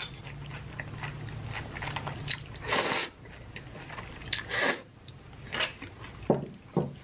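A person slurping and chewing a mouthful of noodles in black bean sauce, with wet mouth sounds. Louder slurps come about three seconds and four and a half seconds in, over a low steady hum in the first couple of seconds.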